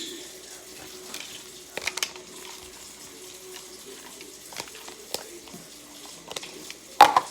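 Homemade glue slime being squished and stretched by hand: scattered wet clicks and pops, with one louder pop near the end.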